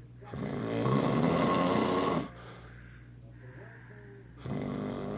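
A man snoring: one loud snore lasting about two seconds, then a lull, then the next snore starting near the end.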